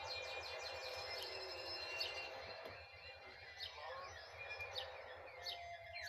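Red canary singing a long, continuous song of rapid trills mixed with held whistled notes.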